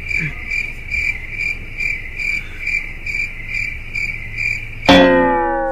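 Steady, high, insect-like chirping, pulsing about twice a second. Near the end it is cut off by a sudden loud hit, followed by several tones that slide downward as they fade.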